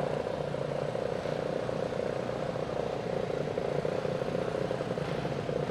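Small single-cylinder go-kart engine idling with a rapid, even putter.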